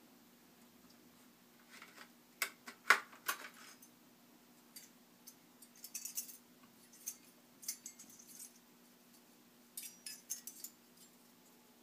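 Light clicks and metallic clinks of a CPU heatsink-and-fan assembly and its metal retention clip being handled. A few sharper clicks come about three seconds in, then scattered lighter ones.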